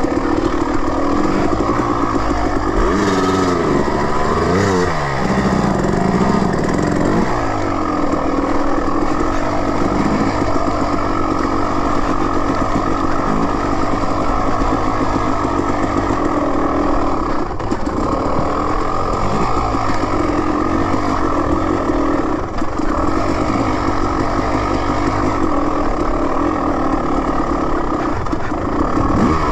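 Dirt bike engine running under load, its pitch rising and falling with the throttle, with a few quick revs about three to five seconds in.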